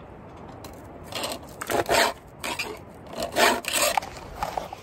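A round chainsaw file rasping across the cutter teeth of a saw chain in a series of separate strokes, each a short gritty scrape, a few strokes in all with gaps between them. The strokes are uneven: first-time, hand-filed sharpening.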